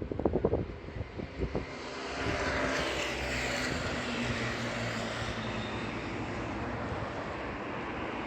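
A few short knocks in the first second and a half, then the steady noise of a passing engine that swells up about two seconds in and carries on to the end.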